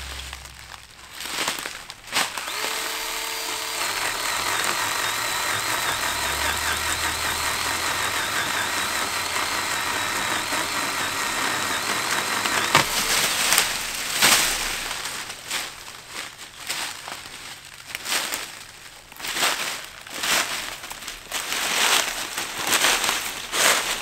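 Litheli 40V cordless pole saw's electric motor and chain running for about ten seconds while cutting an overhead branch, a steady high whine that wavers slightly, then cuts off suddenly. After it, irregular crunching and crackling of footsteps through dry brush and dead leaves.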